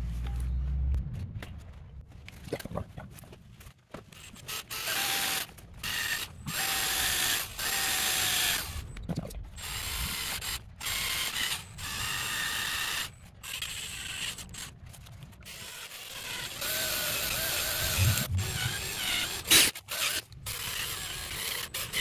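Cordless drill run in a series of short bursts, each about a second long, as it drills through a lithium battery pack's busbar to cut the cell connection.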